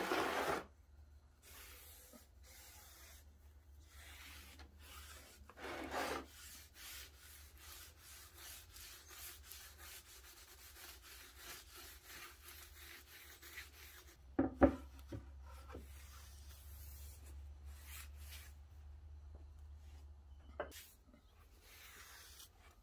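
A cloth rag wiping oil finish onto a carved plywood sign: faint repeated rubbing strokes against the wood, a few of them louder. About two-thirds of the way through there is one sharp knock.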